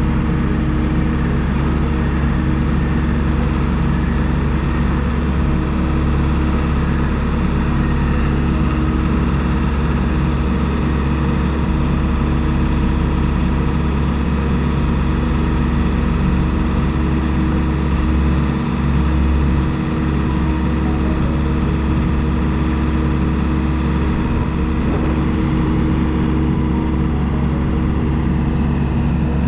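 Gehl skid-steer loader's engine running steadily at an even speed, a constant low hum.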